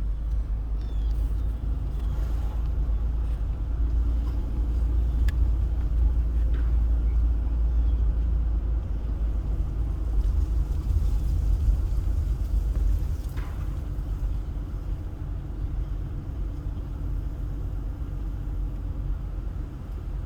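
Car driving slowly, heard from inside: a steady low rumble of engine and tyres on the road, with a few faint brief ticks.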